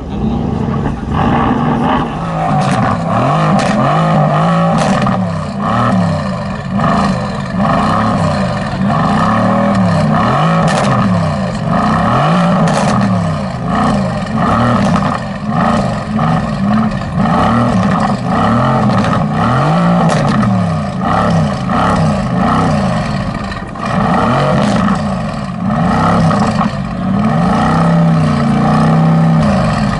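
A high-performance car engine revving up and down again and again, its pitch rising and falling every second or two, with occasional sharp cracks.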